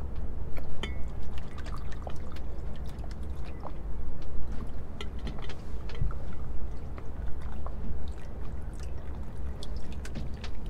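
Water lapping and dripping around a small fishing boat, with many scattered light clicks and ticks over a steady low rumble.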